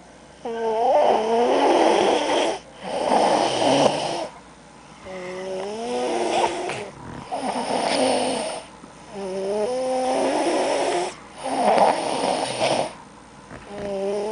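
Loud snoring in slow, regular breaths, about six of them. Rough rasping snores alternate with wavering, pitched, whistling tones, with short pauses between breaths.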